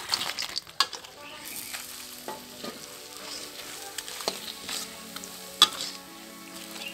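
Battered, fried banana pieces sizzling as they are turned in hot caramel sauce in a pan, with a few sharp clicks of a metal spoon against the pan; the loudest click comes about five and a half seconds in.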